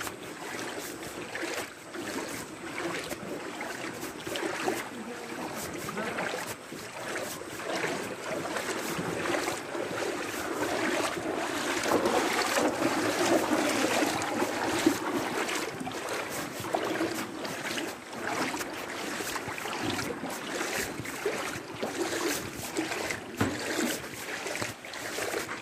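Floodwater splashing and sloshing around the person filming as they move through it, with wind buffeting the phone's microphone. It grows louder about halfway through.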